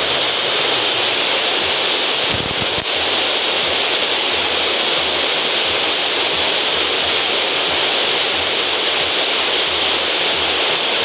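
Radio receiver static: a steady hiss from a weak signal that is almost entirely noise, with a brief crackle about two and a half seconds in.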